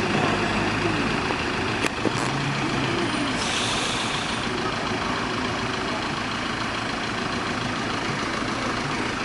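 Steady vehicle and road noise, with two sharp clicks about two seconds in and a short hiss about three and a half seconds in.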